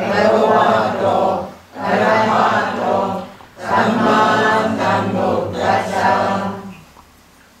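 Buddhist monk chanting into a handheld microphone, held notes in four long phrases with short breaks between, ending about seven seconds in.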